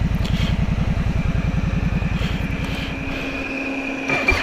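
ATV engine running at low revs, its rapid firing pulses plain, with a faint steady whine above them. It eases off about three and a half seconds in and picks up again just at the end.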